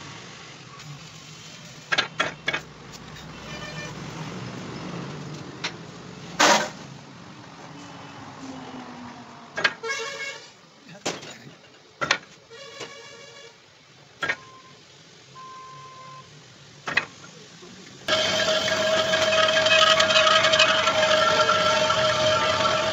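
Several sharp metal knocks and clanks while the rotavator gearbox housing is set up in the lathe's four-jaw chuck. About 18 seconds in, the lathe starts and runs steadily, spinning the heavy cast-iron housing, with a steady hum.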